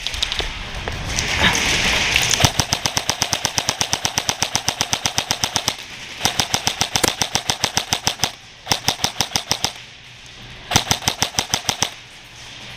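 Airsoft electric guns firing long, rapid strings of shots, in several bursts separated by short pauses.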